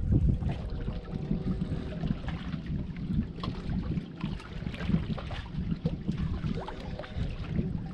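Gusty wind noise on the microphone over water lapping against shoreline rocks.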